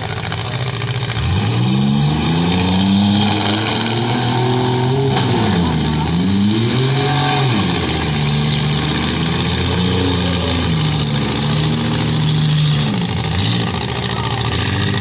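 Compact demolition derby cars' engines revving, their pitch climbing and falling again and again as the cars accelerate and back off around the arena.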